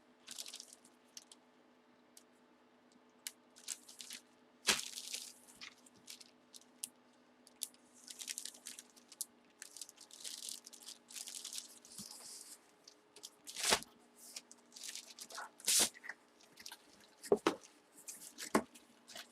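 Trading cards, plastic sleeves and pack wrappers being handled: scattered rustling and crinkling with a few sharp clicks, over a faint steady hum.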